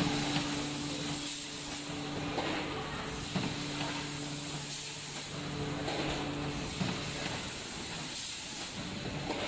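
Automatic rotary premade-pouch packaging machine running, with a steady hiss and a low hum that drops out now and then. A short click comes about every three and a half seconds.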